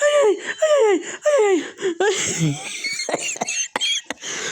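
Helpless wheezing laughter: four high squealing laugh cries, each falling in pitch, about every half second, then thinner squeaky wheezes and short gasping clicks in the second half.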